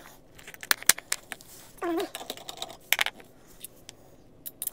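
Scattered sharp clicks and taps of a steel bolt, nut and 3D-printed plastic adapter being handled and fitted together on a wooden table, with a short voiced hum about two seconds in.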